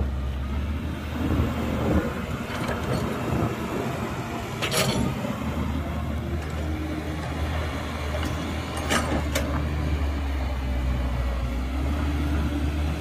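Heavy diesel earthmoving machinery running with a steady low engine drone that eases for a few seconds and then comes back. Sharp clanks come once about five seconds in and twice in quick succession about nine seconds in.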